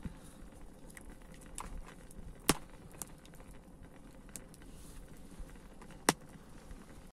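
Wood campfire burning with light crackling and two sharp pops, one a couple of seconds in and one near the end.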